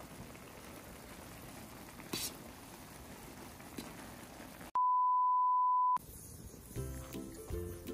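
A single loud, steady electronic beep on one pure pitch, lasting just over a second and starting and stopping abruptly. Before it there are several seconds of faint background hiss with one sharp click, and music begins near the end.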